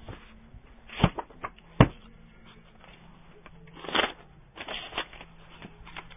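Paperback books being handled on a shop counter: two sharp knocks about a second apart as books are set down, then bursts of rustling as pages are leafed through.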